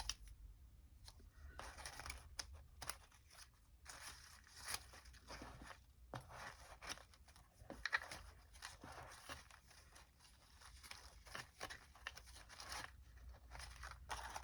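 Faint, irregular rustling and light clicks of small paper pieces being picked up, shuffled and set down on a craft table.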